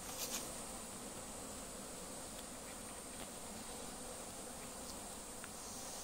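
A swarm of honeybees buzzing steadily around a wild hive cut open in a tree trunk, with a few faint ticks.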